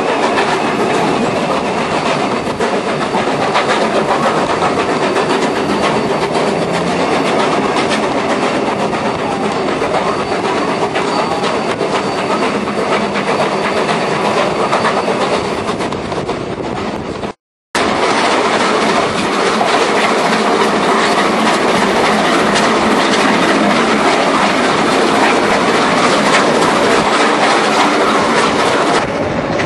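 Steady running noise of a train, heard from an open window of a timber-bodied carriage: wheels on the rails under a continuous rush of noise. The sound cuts out completely for a split second just past halfway, then resumes.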